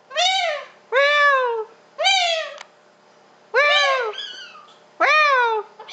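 Pink and grey galah (rose-breasted cockatoo) calling: five loud calls in quick succession, each rising and then falling in pitch.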